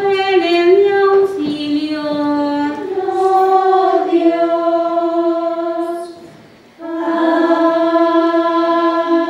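Choir of Poor Clare nuns singing unaccompanied in unison, women's voices holding long notes that step up and down. They break off briefly about six seconds in, then go on singing.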